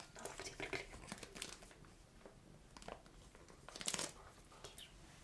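Plastic cat-food pouch crinkling as it is handled and squeezed out over a steel bowl: a run of small faint crinkles, then a louder crinkle about four seconds in.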